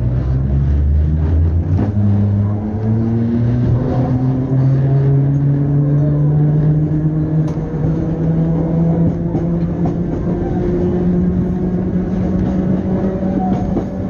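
Electric multiple unit train accelerating: the traction motors whine in several tones that step up in pitch about two seconds in and then climb slowly and steadily, over a constant rumble.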